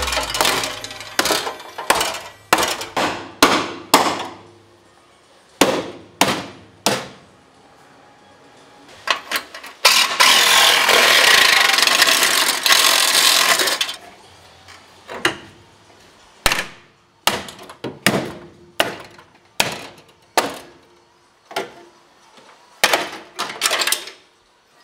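Hammer blows on the steel of a Mercedes E-class front inner wing: irregular sharp metallic strikes. Midway a power tool cuts the panel steadily for about four seconds before the hammering resumes.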